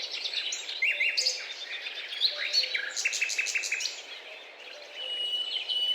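A group of Guira cuckoos calling over one another in quick trains of repeated high notes. There is a short lull with a thin, steady whistle near the end before the calling picks up again.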